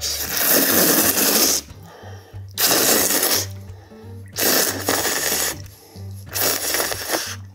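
A person loudly slurping soup-soaked glass noodles, four long slurps in a row, under soft background music with a steady bass line.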